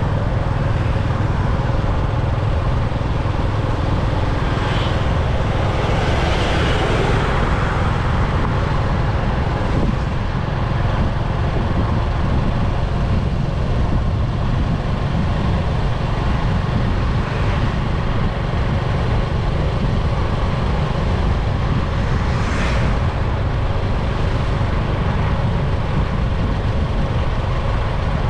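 Steady low rumble of road and wind noise from a moving vehicle on an open road. Passing traffic briefly swells louder about six seconds in and again a little past twenty-two seconds.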